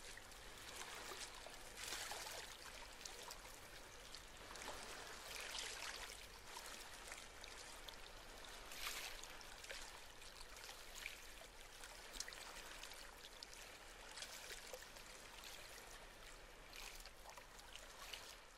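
Water running and trickling steadily, with brief louder splashy surges now and then over a faint low hum.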